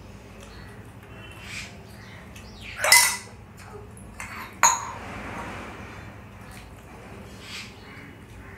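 Dishes knocking together at the table during a meal: a short clatter about three seconds in, then a sharp ringing clink a second and a half later.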